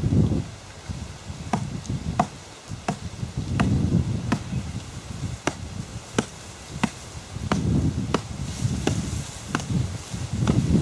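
Sharp chopping knocks from a blade cutting at coconuts, evenly spaced at about one every two-thirds of a second. Gusts of wind rumble on the microphone, swelling twice in the middle and again near the end.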